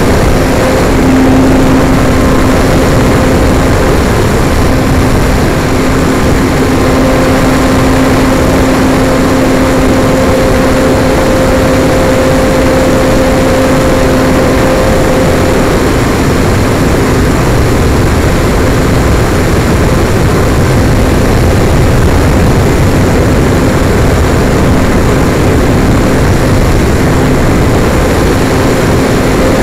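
RC model airplane's motor and nose propeller running steadily in flight, heard from a camera on board the plane, with a low hum that fades in and out under loud, steady rushing air.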